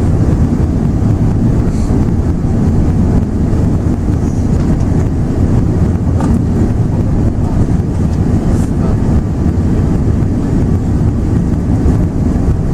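Steady loud rumble inside the cabin of a Lufthansa Airbus A380: engine and airflow noise heard from a passenger seat, with a couple of faint ticks.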